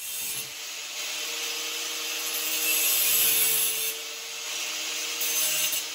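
A power tool runs with a steady airy hiss over a low motor hum, swelling a little midway, and stops after about six seconds.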